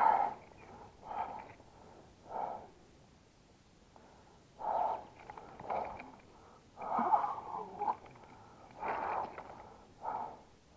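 A person breathing hard and panting close to the microphone, in loud, uneven breaths about one a second.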